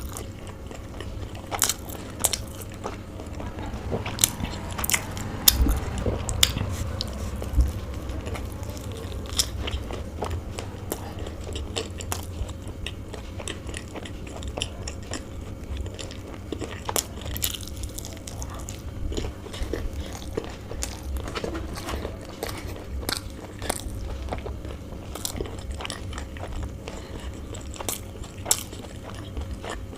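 Close-up chewing and biting of chicken bao buns, with many small wet mouth clicks and smacks.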